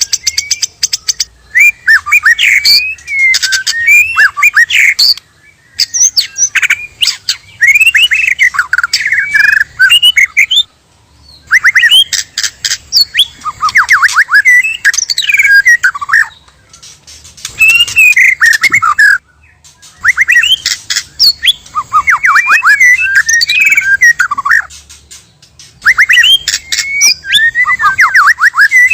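White-rumped shama (murai batu) song: loud bouts of rapid, sweeping notes, each bout lasting a few seconds, with brief pauses between them.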